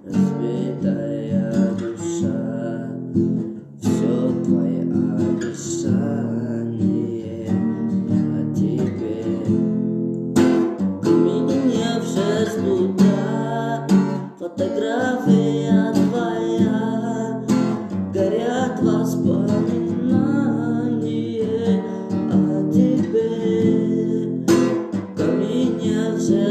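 Acoustic guitar strummed in chords, a steady instrumental passage of a song with brief breaks about four and ten seconds in.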